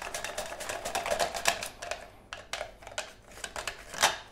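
Onion being sliced on a mandoline slicer over a stainless steel bowl: a quick run of sharp clicking, rasping strokes that thins out after about two seconds, then a loud clack near the end as the slicer knocks against the bowl.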